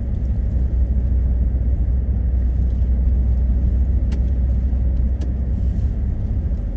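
Steady low rumble of a car driving, heard from inside the cabin: engine, tyre and road noise. Two brief clicks about four and five seconds in.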